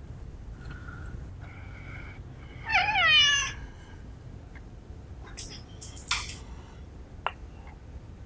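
A domestic cat meows once, a loud call about three seconds in that falls in pitch. A few short rustles and a sharp click follow near the end.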